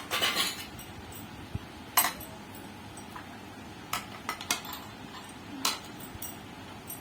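Kitchen utensils clinking and knocking: about half a dozen sharp clinks, a second or two apart, with a quick cluster of three about two-thirds of the way through.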